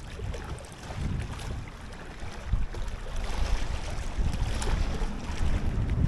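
Gusty wind buffeting the microphone: a low, uneven rumble that dips early on and then builds again.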